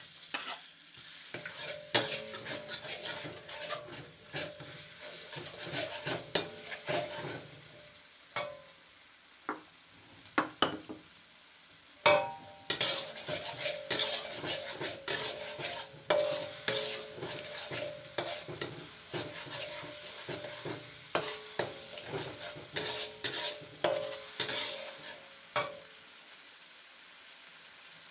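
A metal spatula scrapes and knocks against a metal wok, stirring ground chili, shallot and garlic paste frying in hot oil, which sizzles. The stirring stops near the end, leaving the sizzle alone.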